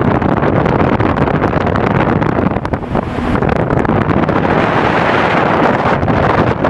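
Motorboat under way at speed on open sea: wind buffeting the microphone over the rush of the hull through the water and the run of the motor, loud and steady with constant rough crackle.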